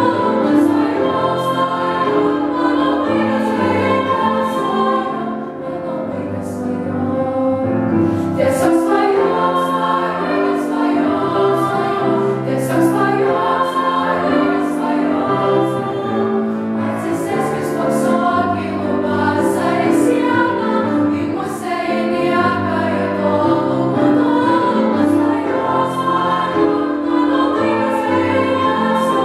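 A female vocal ensemble singing a song unaccompanied, holding chords in several parts that change every second or so.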